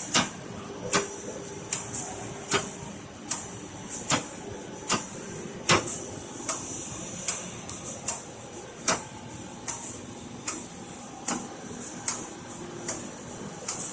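Industrial microwave drying machine running with a steady hum and hiss, and a sharp mechanical click repeating evenly about every 0.8 seconds.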